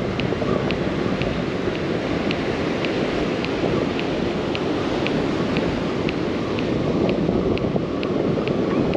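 Spinning reel being cranked steadily to reel in a hooked whiting, giving light ticks about twice a second, over the steady wash of surf and wind buffeting the microphone.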